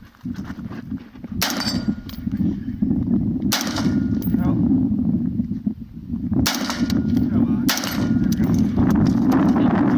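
Four single gunshots a second or two apart, the first three each followed by a faint ring from a struck steel gong target, over a steady low rumble.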